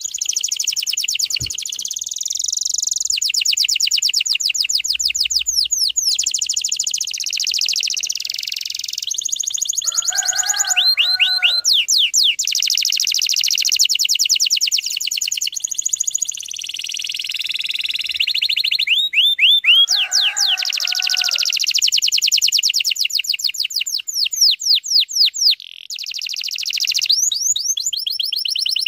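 Domestic canary singing a long, continuous song of fast trills and rolling phrases. Twice, shorter and lower calls break in. It is a lure recording of the kind played to young male canaries to make them start singing.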